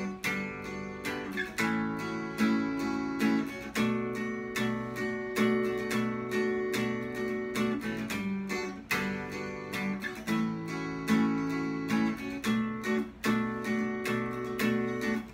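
Acoustic guitar strumming chords in a steady rhythm: the instrumental break of a song, with no singing.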